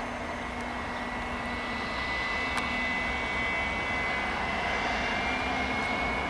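Gulfstream G280 business jet's Honeywell HTF7250G turbofan engines running, a steady jet whine that rises slightly in pitch, over a constant rush of engine noise.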